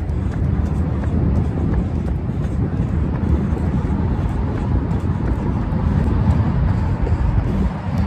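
Wind buffeting the microphone of a phone carried by a runner: a loud, steady low rumble.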